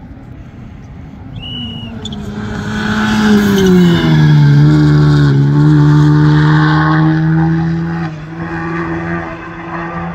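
A rally car's engine approaching and going by at speed. It grows loud, its note falls in pitch near the middle, then it holds steady and fades toward the end.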